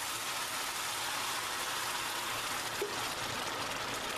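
Steady sizzling hiss as hot water is poured into a pot of rice and orzo toasted in butter and oil, the water hitting the hot fat and grains.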